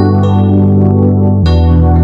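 Background keyboard music: a sustained low chord under a slow melody of notes, with the bass chord changing about one and a half seconds in.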